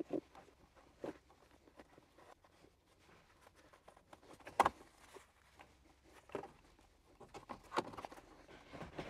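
Light clicks and rustles of hands threading a shift knob onto a short-shifter lever and working the shift boot around its base, with one sharper click about halfway through.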